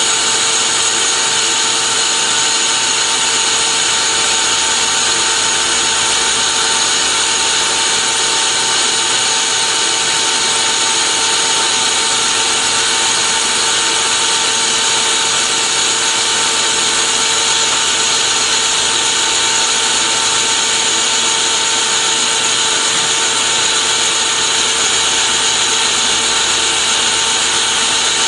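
Metal lathe running a long power-fed turning pass along a bar held between centres. It makes a steady mechanical whir with several constant whining tones and cutting noise, unchanged throughout.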